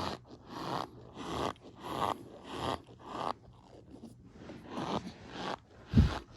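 Close-up mouth sounds of fast, messy eating: wet chewing and smacking in a steady rhythm of about ten bites or chews, one every half second or so. A single low thump about six seconds in is the loudest moment.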